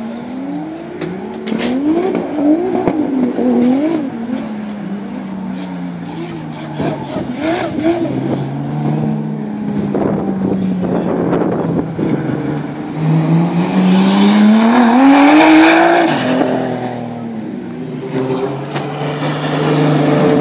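Drift cars revving up and down again and again while sliding round the track. About two-thirds of the way in, one engine revs up in a long rising note and is loudest with a rush of tyre noise, then a car engine runs steadily at low revs near the end.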